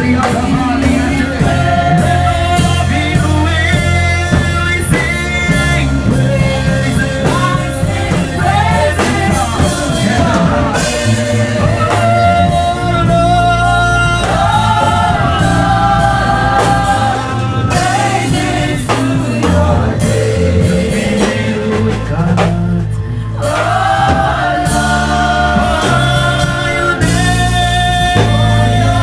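Gospel worship song: sustained singing over a full band with drums and bass.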